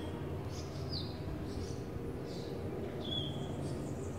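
Birds chirping in open country: short high calls, several times over the few seconds, over a steady low background rumble.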